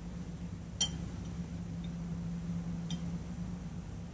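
Two light clinks of a metal utensil against a dessert plate, a sharper one about a second in and a fainter one near three seconds, over a steady low hum.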